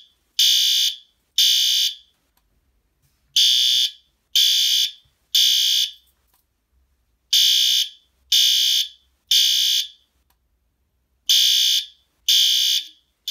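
System Sensor L-series P2GRL fire alarm horn strobe sounding the temporal-3 evacuation pattern. It gives three high-pitched horn blasts, each about half a second long and a second apart, then a pause of about a second and a half, and this repeats.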